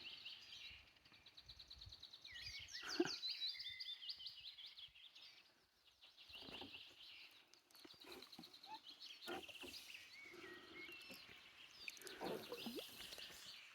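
Small songbirds singing in a wood: overlapping phrases of high chirps and rapid trills, one after another.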